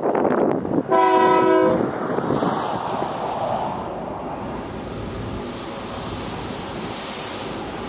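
Air horn of a Union Pacific GE C44AC freight locomotive sounding one short chord blast about a second in, followed by the steady rumble of the approaching freight train.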